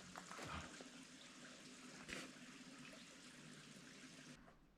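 Near silence: a faint steady hiss with a soft tick or two.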